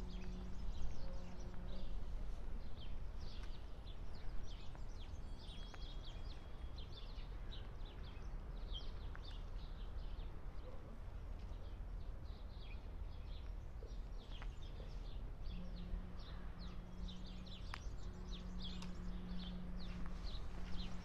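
Small birds chirping, many short high notes one after another, over a steady low outdoor rumble. A low steady hum is heard at the start and again from about three-quarters of the way through.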